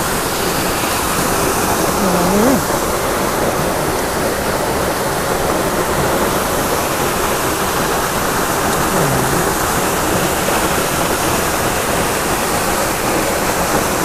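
Waterfall rushing, very loud and steady.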